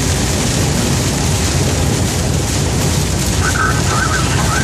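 Vehicle cab noise while driving a rain-soaked highway in a storm: a steady, loud low rumble of engine and road with a hiss of rain and tyre spray over it.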